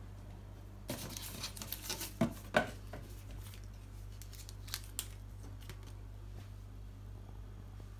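Paper stickers being handled: a second or two of crinkling and rustling, then two light clicks a little later, over a faint steady low hum.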